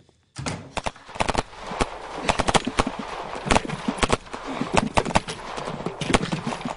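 Battle gunfire: many sharp, irregular rifle and machine-gun shots over a steady noisy background, starting abruptly less than half a second in.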